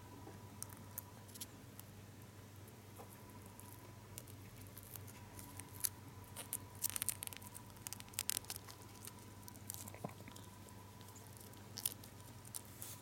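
Silver foil gum wrapper crinkling and crackling softly as fingers fold and crease it, in scattered small crackles that come thickest in the middle and again near the end.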